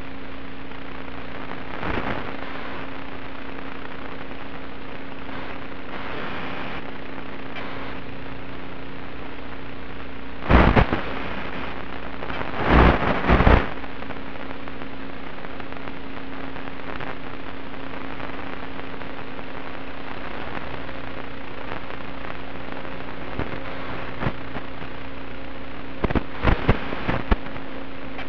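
Steady hiss with a low hum from the audio channel of a 1.3 GHz analog FPV video link as recorded by the goggles' DVR. It is broken by loud crackling bursts: briefly about 2 seconds in, then about 10 and 13 seconds in, and several short ones near the end. These are the marks of radio interference on the link.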